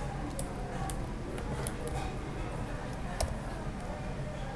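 A handful of scattered sharp clicks from a computer mouse and keyboard, over a low steady background hum.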